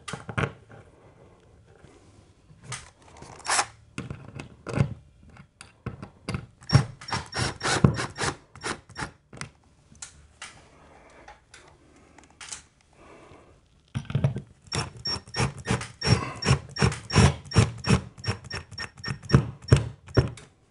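Bosch compact cordless impact driver driving Phillips screws through curtain-rod brackets into the wall, in two long runs of rapid rattling impacts about seven and fifteen seconds in. Scattered knocks come before them as the bracket and screw are set.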